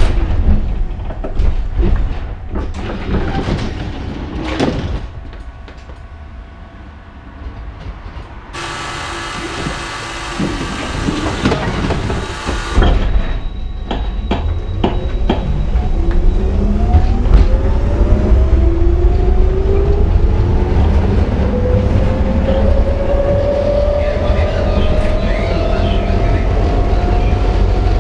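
Budapest ICS tram heard from inside the passenger car: clicks and knocks of the wheels over the track, a quieter spell, then a few seconds of hiss. After that the motor whine climbs steadily in pitch as the tram gathers speed, over a constant low rumble.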